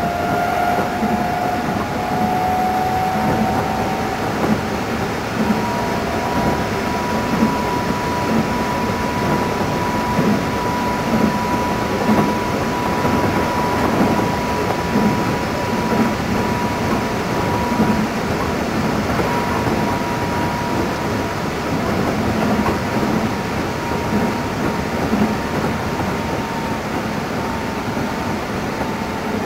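Keikyu 600 series electric train running at speed, heard from inside the front car: a steady rumble of wheels on rail. Over it runs a thin high whine that climbs a little over the first few seconds, then holds steady until near the end.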